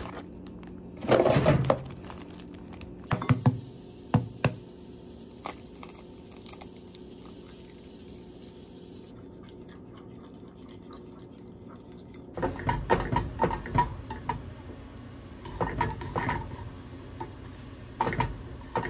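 Kitchen utensil noise while cooking scrambled eggs: a few sharp knocks and clatters early on, then a quieter stretch with a steady low hum, and from about two-thirds of the way in a spatula scraping and tapping against a nonstick frying pan, with short metallic pings.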